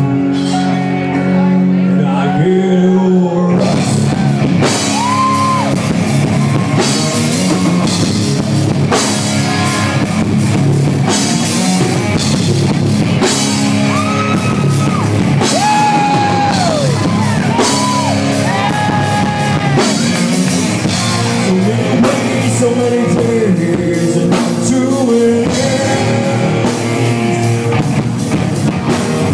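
Live rock band playing: electric guitar alone for the first few seconds, then the drum kit and the rest of the band come in, with a voice singing the melody over them.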